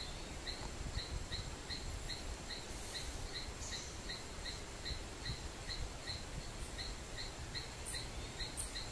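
Outdoor wetland ambience: a single insect chirping steadily at about three short chirps a second, over a soft background hiss.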